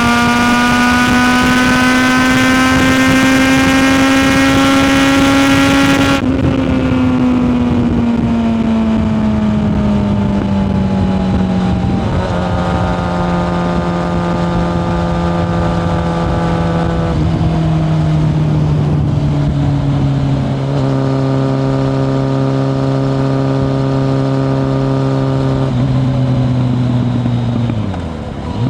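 1997 Kawasaki ZRX1100's inline-four through a Yoshimura exhaust, heard onboard. It pulls with a slowly rising note for about six seconds. The throttle then shuts and the revs fall as the bike slows, before it cruises at steady lower revs. Near the end there is a brief dip in revs and loudness.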